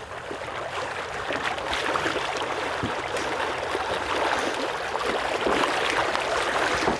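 Water splashing and sloshing as a retriever dog swims and then wades through shallow floodwater carrying a duck, getting louder toward the end.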